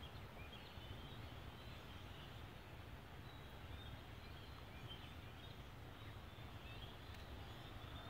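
Many faint, short calls from a large, distant flock of waterbirds, scattered continuously over a low steady rumble.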